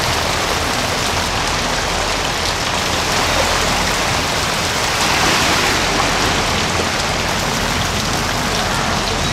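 Heavy rain falling steadily and hard on surfaces and floodwater.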